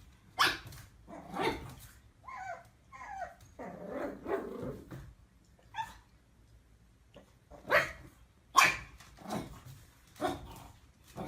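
A dog barking: about ten short, separate barks with gaps between them.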